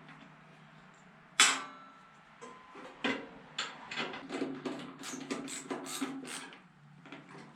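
Metal clanks and clicks of a table saw blade being fitted and the saw adjusted by hand. A single sharp clank comes about a second and a half in, followed by a run of irregular lighter knocks and clicks.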